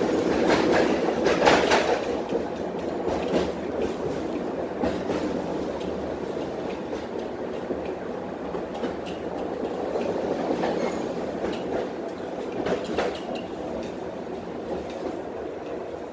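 Ride noise inside a Tatra T6B5 tram under way: a steady rumble of steel wheels on the rails, broken by irregular knocks and clacks from the track. The loudest knock comes about one and a half seconds in, and the rumble eases slowly toward the end.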